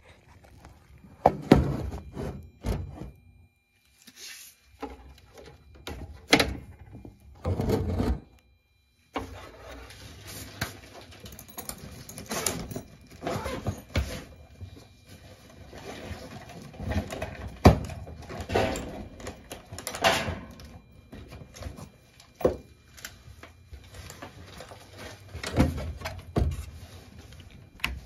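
Irregular clunks, knocks and scraping of hands and a meter's test leads working inside a sheet-metal furnace cabinet while the inducer motor's wiring is checked for power.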